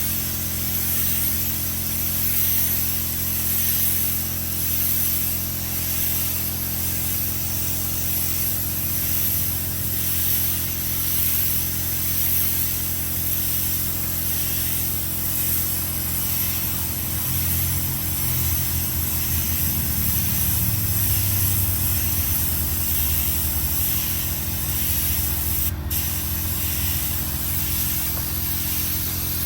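Paint spray gun hissing steadily as it sprays paint, over a steady low hum. A single sharp click comes near the end.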